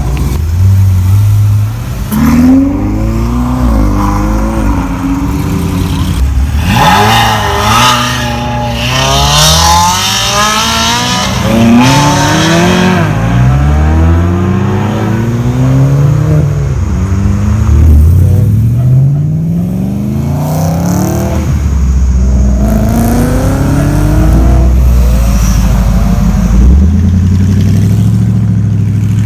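Car engines revving and accelerating, their pitch climbing and dropping again and again, over a steady low engine rumble.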